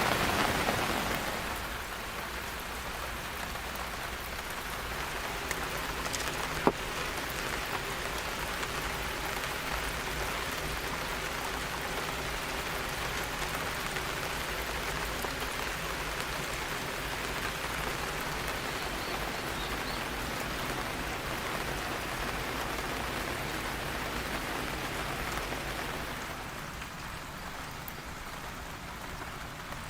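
Steady rain falling, an even hiss with one sharp tap about seven seconds in. It steps down a little in level about two seconds in and again near the end.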